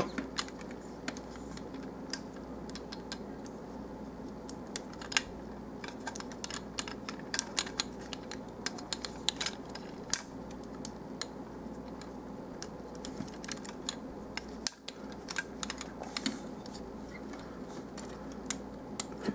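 Plastic parts of a Transformers Revenge of the Fallen Voyager Class Long Haul figure clicking and clacking as it is handled and transformed: light, irregular clicks, some in quick clusters, over a faint steady hum.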